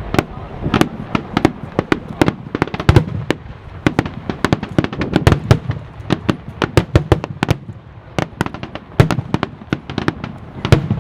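Aerial fireworks shells bursting in quick, irregular succession: several sharp bangs a second, with a low rumble between them.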